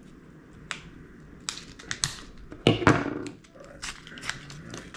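Hands handling fishing tackle and a pair of fishing pliers on a wooden tabletop: scattered light clicks and taps, with one louder clatter a little after halfway.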